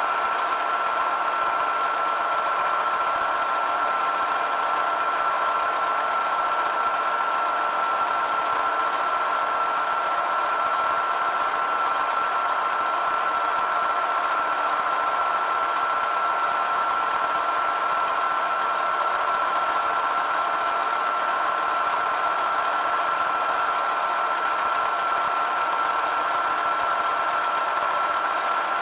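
Milling machine running steadily with a high, even whine as a small end mill takes a light cleanup cut along the side of a cast eccentric strap.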